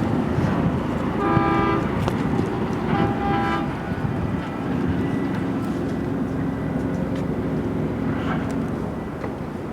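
Two short horn toots, about a second in and again about three seconds in, each a steady held note, over a steady low rumble.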